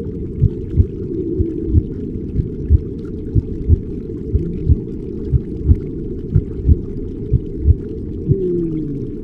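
Deep, muffled sound with all the treble cut away: a low rumble with paired thuds about once a second, in a slow, even rhythm. A moaning tone slides down in pitch near the end.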